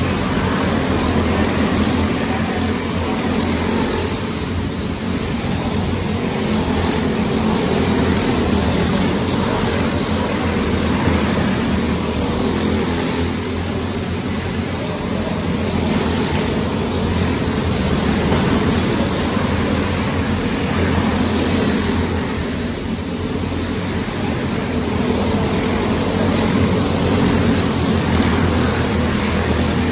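A field of racing go-kart engines running together in a steady drone that swells and fades about every nine seconds as the pack laps past.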